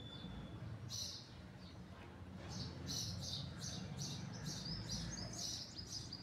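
Small birds chirping: short high chirps repeating two or three times a second, thickening into quick stepped notes near the end.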